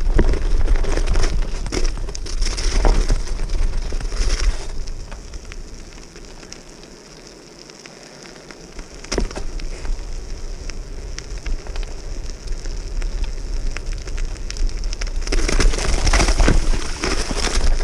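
Bicycle tyres crunching and crackling over packed snow and slush, with a low rumble underneath. It is quieter for a few seconds in the middle on bare wet pavement. It grows loud again near the end as the tyres break through refrozen ice and slush.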